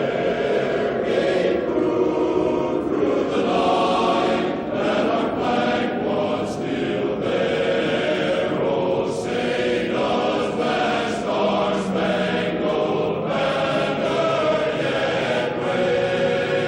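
A choir singing with long held notes.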